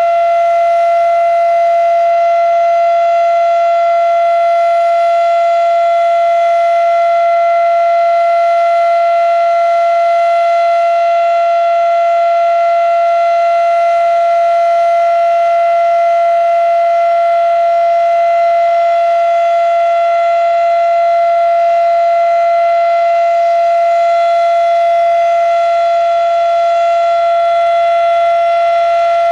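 Fedelcode Model 7 outdoor warning siren sounding a steady alert tone near 700 Hz, held at one pitch without wailing, during a test.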